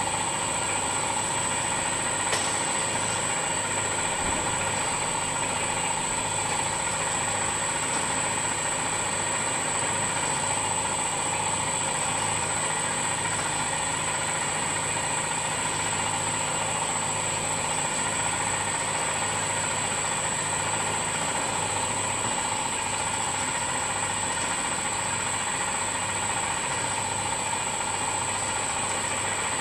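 Boutelje Honey Auger running steadily, its motor-driven auger grinding slabs of crystallised honey: an even machine hum with a constant high-pitched whine over it.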